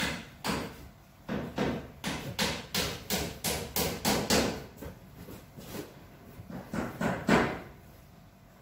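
An irregular series of sharp knocks, two or three a second, with the loudest one about seven seconds in, after which they die away.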